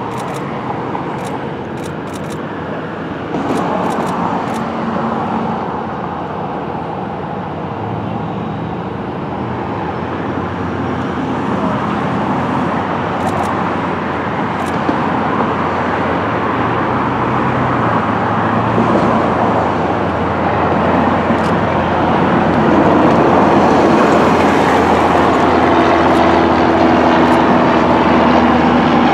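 Steady aircraft engine noise, growing louder over the second half, with a low steady hum coming in near the end.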